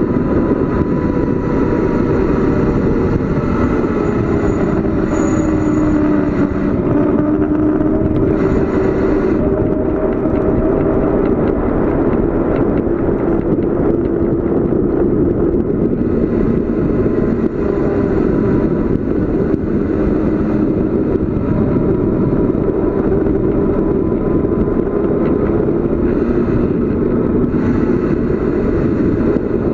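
Steady wind rush and road rumble from riding a bicycle downhill, with a faint droning tone that slides slowly up and down in pitch.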